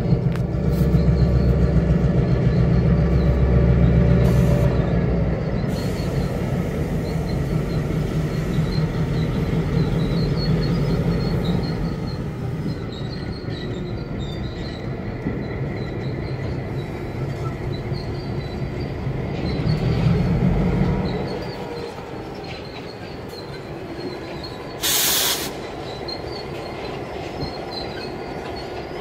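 EMD SD9 diesel locomotives' 16-cylinder engines running heavy under load as they move slowly through the yard, swelling once more about 20 s in and then dropping back to a lower rumble. A thin wheel squeal wavers in and out over the engine sound, and a short burst of hiss comes near the end.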